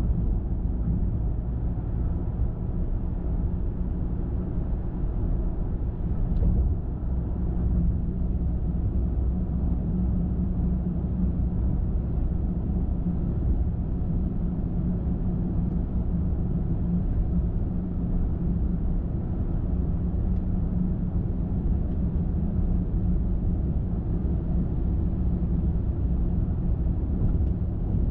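Car driving at steady speed: a continuous low rumble of tyre and road noise with the engine underneath, holding even throughout.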